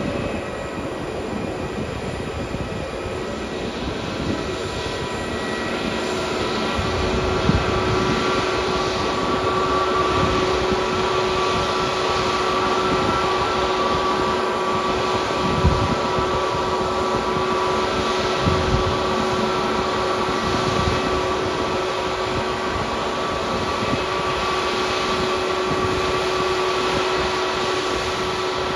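Airbus A321neo's two geared turbofan engines running at idle as the airliner taxis slowly on the apron. It is a steady jet whine over a hum, swelling slightly a few seconds in.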